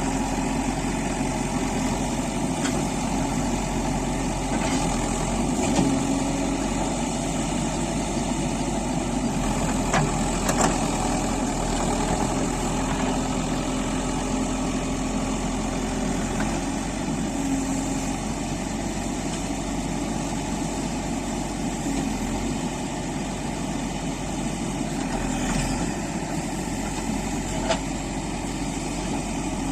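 Backhoe loader's diesel engine running steadily, with a few faint knocks now and then.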